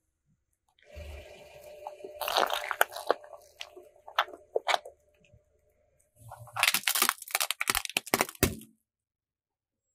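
A car tyre rolling over and crushing small objects, crunching and crackling with sharp snaps. There are two bursts, one starting about a second in and another about six and a half seconds in.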